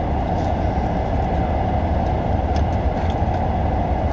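Steady low rumble and hiss of a car running, heard inside the cabin, with a few faint light ticks.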